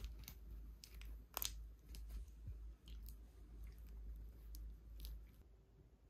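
Faint crunchy chewing: irregular crunches for about five seconds, then they stop.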